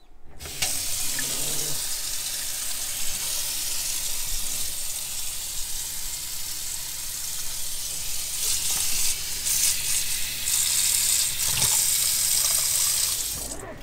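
Kitchen faucet running at full flow into a stainless-steel sink, water spattering on the steel, as bleach solution is flushed through the camper's fresh-water lines. A steady low hum from the RV water pump runs under it, and the water shuts off just before the end.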